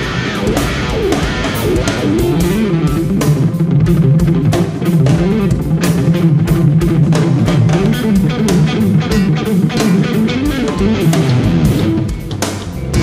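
Live instrumental rock: electric guitar playing fast runs of notes that rise and fall, over bass guitar and a steady drum beat.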